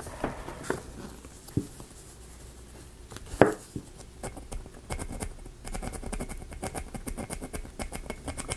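Small metal file rasping on a small wooden kit part, light scrapes at first, then quick back-and-forth strokes through the second half. A single sharp tap about three and a half seconds in.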